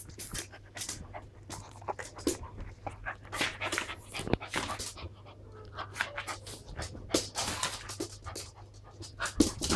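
Two dogs play-wrestling, panting hard in quick breaths with short scuffling noises.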